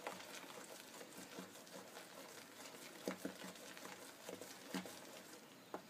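Thick ground whole black gram (urad dal) batter being mixed by hand in a plastic tub: faint, irregular soft pats and wet squishes.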